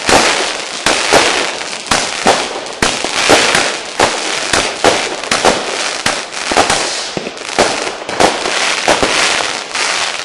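Fireworks and firecrackers going off in rapid succession: sharp bangs, about two a second at irregular intervals, over a continuous hiss of further explosions.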